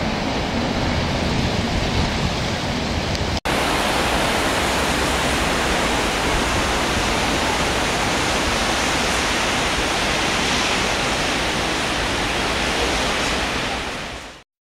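Steady rushing of the Ebro in flood, its fast brown water pouring past the bridge piers. It drops out for an instant about three and a half seconds in and fades away near the end.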